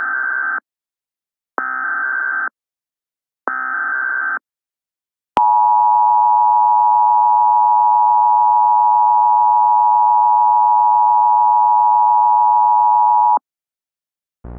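Emergency Alert System opening: three bursts of SAME header data screech, each about a second long and a second apart. Then a click and the EAS two-tone attention signal, held steady for about eight seconds before cutting off.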